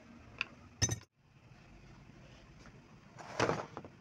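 Two light metal clinks of a screwdriver against a sewing machine's cast-iron hand wheel and stop-motion knob, then a short rustle of handling about three seconds in.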